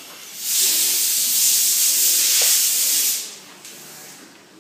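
Electric screwdriver running for about two and a half seconds with a steady, hissy whir, backing a screw out of a robot vacuum's plastic base.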